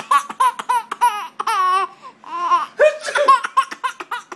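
Baby laughing hard: rapid runs of short, high-pitched laughs, broken by a few longer squealing laughs.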